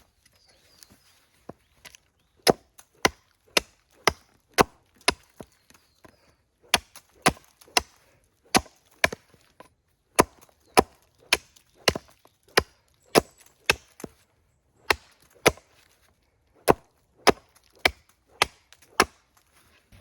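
Repeated sharp wooden knocks, about two a second, coming in runs of two to six strikes with short pauses between them, as of blows struck with a tool during camp setup.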